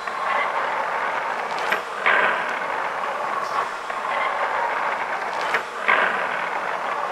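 Kent KGS-510AHD automatic surface grinder running its programmed feed cycle: a steady mechanical hiss and hum. Twice a click is followed by a brief surge in the noise, about four seconds apart.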